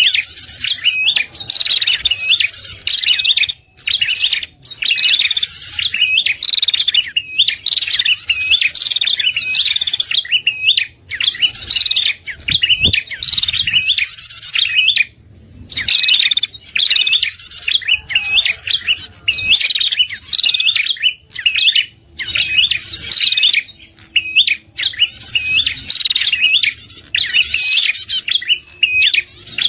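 Prenjak kepala merah bird call used as a trapping lure: loud, rapid, repeated chirping phrases, each a second or two long, separated by brief pauses.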